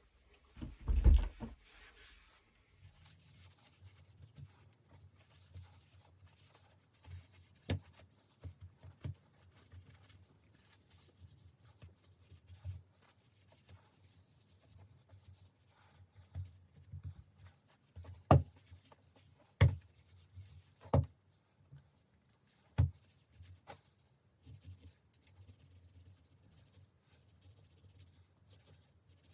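Very fine wire wool scrubbing rust off the chrome of a bicycle hub, a faint steady scratching. It is broken by a thump about a second in and by several sharp knocks, the loudest a few of them between about 18 and 23 seconds in.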